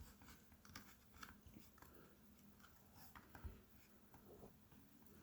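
Near silence with faint, scattered soft clicks and squishes of hands working two-part steel epoxy putty, and a dull knock about three and a half seconds in.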